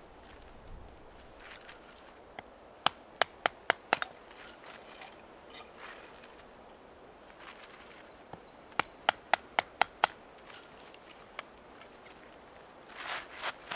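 Small firewood being split on a tree stump: two quick runs of about six sharp knocks of a blade being struck through wood, a few seconds apart, with single knocks between. A short crackling rustle near the end.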